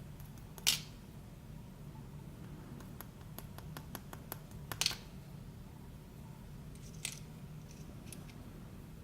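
Small metal lock parts clicking and tapping on a hard surface while an ASSA d12 lock cylinder is taken apart: a sharp click about a second in, a quick run of light clicks from about three to five seconds in, and another click near seven seconds, over a low steady hum.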